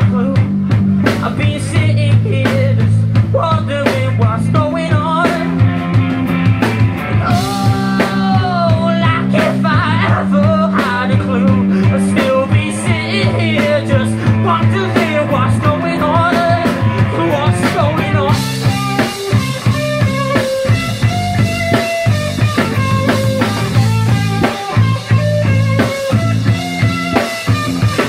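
Rock band playing live: bass, drum kit and electric guitar in an instrumental passage, with a melodic line sliding in pitch early on. About two-thirds of the way through the cymbals grow louder and brighter.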